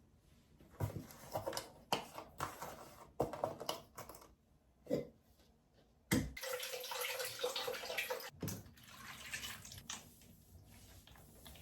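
Water running from a tap into a sink for a few seconds, starting about six seconds in, among scattered knocks and clinks of things being handled.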